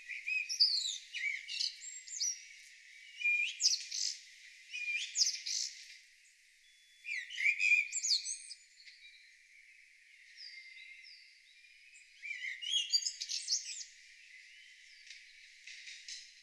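Songbirds singing: high-pitched chirps, quick whistled glides and trills in bursts of a second or two, with short pauses between phrases.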